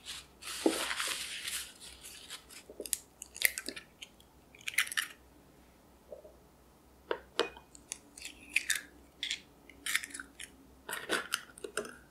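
Raw eggs being cracked open by hand: crunchy crackling of breaking eggshell and a series of sharp cracks, in several separate bursts, loudest about a second in.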